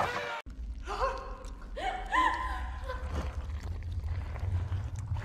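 A voice making a few short wordless sounds, over a steady low rumble.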